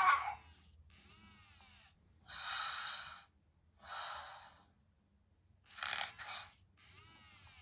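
Little Live Pets Cozy Dozys Cubbles the Bear plush toy playing its sleepy snoring sounds: soft whistling in-breaths and breathy puffs out, each about a second long with short gaps, after a louder breath at the start.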